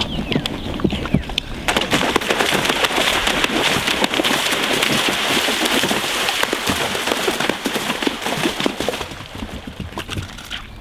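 Horse plunging into a cross-country water jump: several seconds of loud splashing and churning water as it gallops through, starting suddenly a couple of seconds in. Lighter hoofbeats on turf before and after the splashing.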